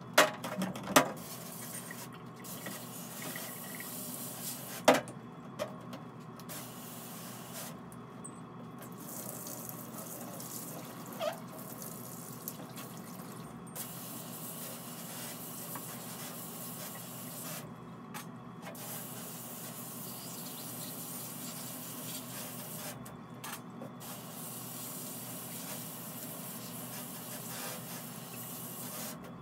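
Water running from a tap into a stainless steel sink while something is rinsed, a steady rush, with a few sharp knocks near the start and about five seconds in.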